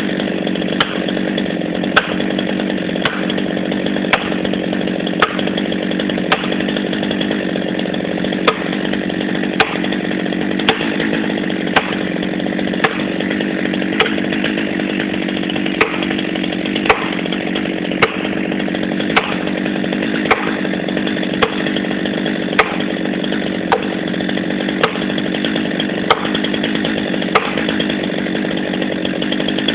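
Chainsaw running steadily at high speed, with a sharp click about once a second.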